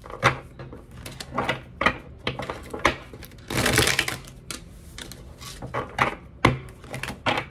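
Tarot cards being shuffled by hand: irregular snaps and clicks of cards against each other, with a longer rustle about three and a half seconds in.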